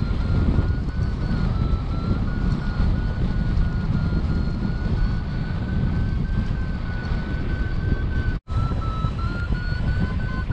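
Wind rushing over the microphone of a camera on a flying paraglider, with a paragliding variometer's high tone sounding steadily and wavering slightly in pitch. The sound cuts out for an instant about eight seconds in.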